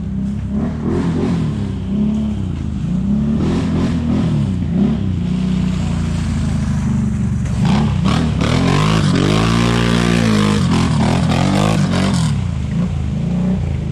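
ATV engines running with the throttle varying, and one engine revving up and falling back again in the second half.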